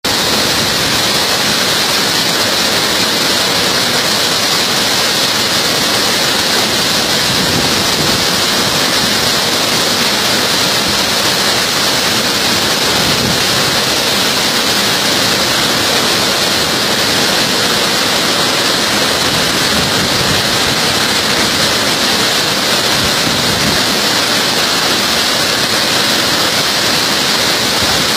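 Waterfall in heavy flood: a loud, steady, unbroken rush of water with a strong hiss on top.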